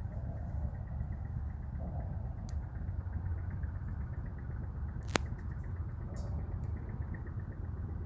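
Wood fire burning in a small UCO camp stove, with faint crackles and one sharp pop about five seconds in, over a steady low rumble.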